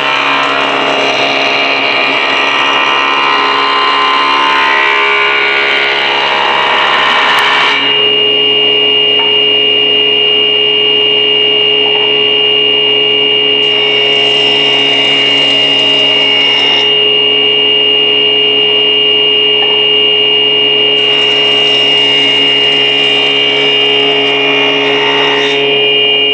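Electric wood planer (randa machine) running with a steady motor-and-cutterhead whine while a wooden board is fed across its cutterhead three times. Each pass is a loud rushing cut: the first lasts about eight seconds, the second about three seconds near the middle and the third about four seconds near the end. This is a used machine run to show its sound and condition, which the seller says is in full working order.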